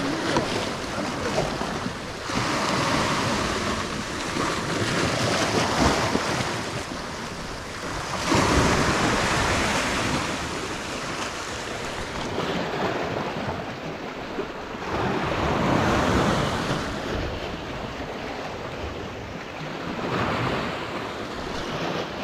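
Sea waves washing against a rocky shore, surging and falling back every few seconds, with wind on the microphone.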